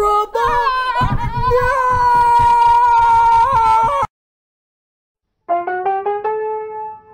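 A loud voice holds one long, slightly wavering sung note for about four seconds and cuts off abruptly. After a second and a half of silence, piano-like keyboard notes start playing a simple tune.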